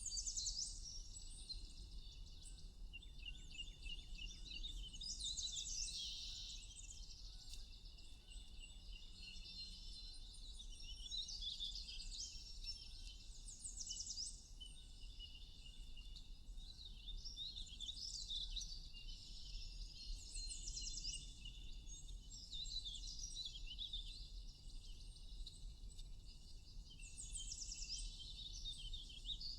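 Several songbirds singing and chirping at once: overlapping high chirps and fast trills that go on without a break, over a faint steady low hum.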